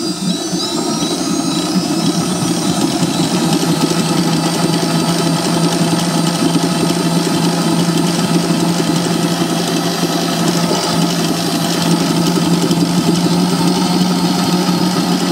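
Vevor 7.4-quart stand mixer's motor running at a low speed setting (speed 2), spinning up in the first second or so and then holding a steady hum.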